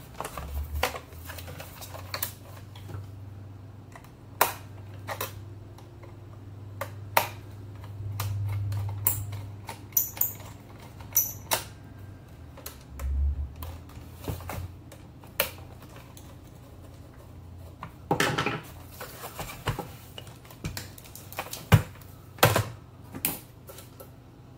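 Scattered clicks, taps and knocks of plastic and metal as a Northern Electric 500 rotary telephone is handled and put back together: the phone turned over and its metal base plate worked on. Near the end the handset is set back in its cradle.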